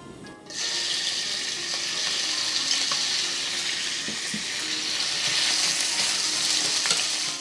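Diced chicken thigh sizzling steadily in hot sesame oil in a nonstick frying pan. The sizzle starts about half a second in as the pieces land, and chopsticks turn the pieces near the end.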